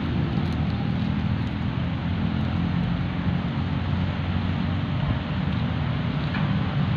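Steady low rumble of road traffic, even throughout with no distinct events.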